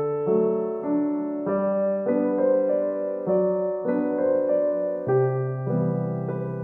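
Background piano music: a gentle solo piano piece, its chords and notes changing about every half second.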